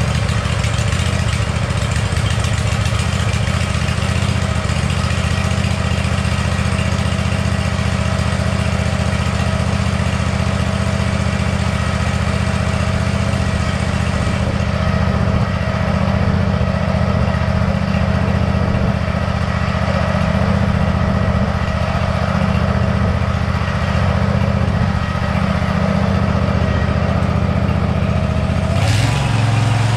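Zero-turn lawn mower engine running steadily at a constant speed; about a second before the end its note shifts, as with a change in engine speed.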